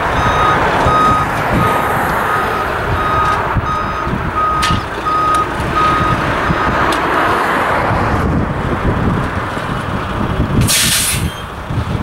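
Dump truck reversing, its diesel engine running under a backup alarm that beeps about twice a second and stops about halfway through. Near the end comes a short hiss of air from the truck's air brakes.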